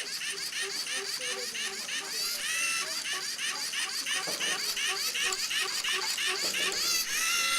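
Small robot's electric drive motors whining in quick, even pulses, several a second, as a line-following robot keeps correcting left and right along the line. Near the end the whine settles into a steadier tone.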